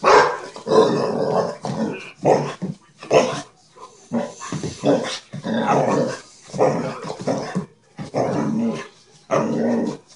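A dog growling and barking in excited play, in a string of short bursts with brief gaps between them.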